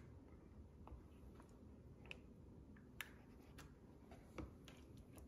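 Near silence with a few faint, scattered clicks and taps: a plastic spatula scooping meat sauce from a plastic tub and laying it onto lasagna noodles in a glass baking dish.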